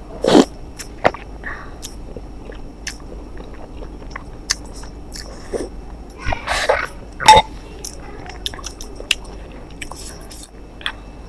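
A person chewing and biting food close to the microphone, with scattered wet mouth clicks and a few louder bites, the loudest near the start and about seven seconds in.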